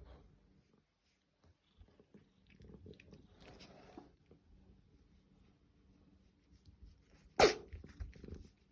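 British shorthair cat sneezing once, a single short sharp burst near the end, with fainter soft noises before it.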